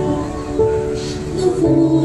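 Christian worship music: a held instrumental chord with little or no singing, and a lower bass note coming in near the end.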